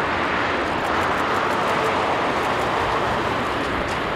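Boeing 787-9 jet airliner on its landing roll just after touchdown, its engines giving a steady, loud rushing roar.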